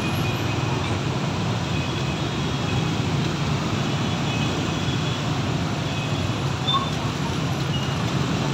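Steady din of dense, slow-moving traffic: many motorbike and scooter engines running at once, with some cars, packed close together in a jam.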